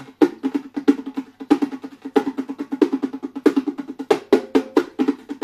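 Bongos played by hand in a quick, steady rhythm, sharp strikes alternating with the two drums' ringing tones.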